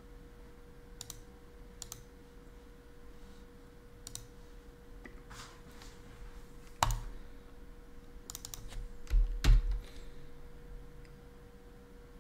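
Computer keyboard keys and mouse clicks, sparse and irregular, with a sharper click about seven seconds in and a short burst of louder knocks around nine and a half seconds.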